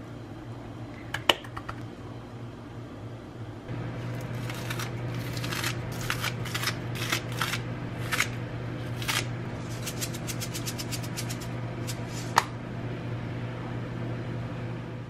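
Kitchen scissors snipping green onion over a pot: a quick run of crisp snips lasting several seconds. A steady low hum underneath gets louder a few seconds in.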